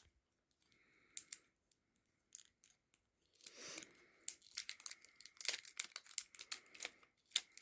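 Funko Itty Bitty Pop blind-box packaging being torn open by hand: a few faint scattered rustles and clicks, then from about three seconds in a busy run of tearing and crinkling.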